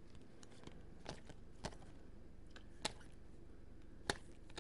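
Faint handling of stiff chrome-finish baseball trading cards, a few short sharp clicks and ticks as the cards are slid and flicked against one another.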